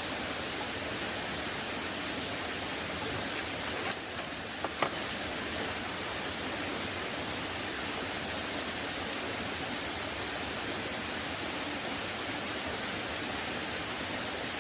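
Steady rushing of a mountain creek flowing over rocks, with two or three sharp clicks about four to five seconds in.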